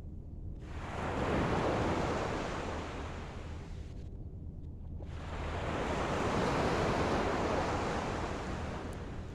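Ocean waves washing in on the shore, two swells of surf noise that build and fade, one after the other.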